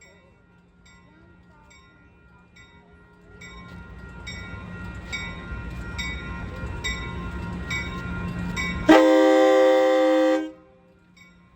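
A railroad crossing bell rings steadily while an approaching train's rumble builds. About nine seconds in, the locomotive horn gives one loud blast lasting about a second and a half, then cuts off, leaving the bell.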